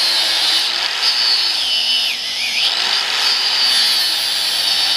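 Angle grinder with an abrasive disc cutting into an old racing slick, throwing sparks off the steel inside the tyre. It is a steady high whine whose pitch dips about two seconds in as the disc bogs under load, then picks back up.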